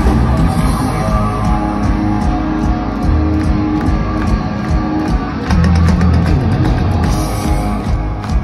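Heavy metal band playing live through a big stage PA, with distorted electric guitar and drum kit and no vocals. Sharp claps come through from about five and a half seconds in, as the crowd claps along.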